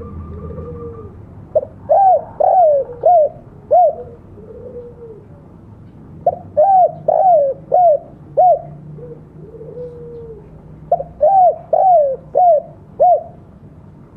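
Spotted dove cooing: three phrases, each a quick run of about five arched coos, about four and a half seconds apart, with softer, lower coos between the phrases.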